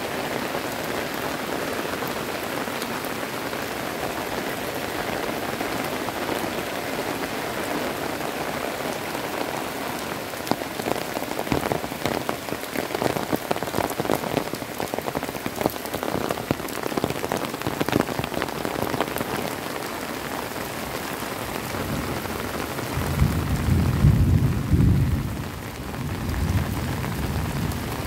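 Heavy rain falling steadily on a paved lane, trees and roofs, with sharper close drop strikes in the middle. About 23 s in, a low rumble swells for about three seconds and then fades.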